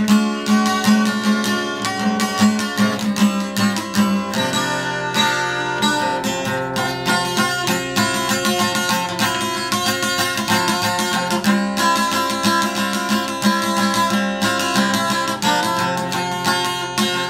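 Acoustic guitar strummed in a steady, rhythmic chord pattern.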